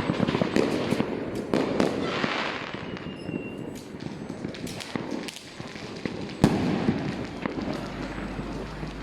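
Fireworks and firecrackers going off: a dense crackle of many small sharp bangs in the first few seconds that thins out, with one louder sharp bang about six and a half seconds in.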